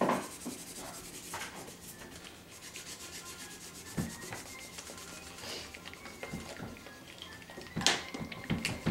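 Markers rubbing and scratching on paper as two children colour, with a light tap about four seconds in and a sharp clack on the wooden table near the end.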